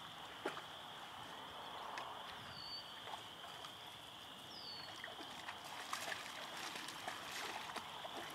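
Quiet outdoor ambience: a steady high-pitched chorus, a short falling bird call twice, and scattered light clicks in the second half.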